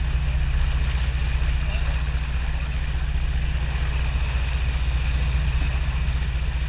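Charter boat's engine running steadily, a low rumble under the hiss of churning water in the boat's wake.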